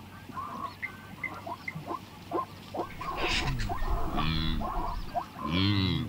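Animal calls from a zebra and wildebeest herd: a run of quick, high chirps, then two longer, deeper calls that rise and fall in pitch, one about four seconds in and one near the end.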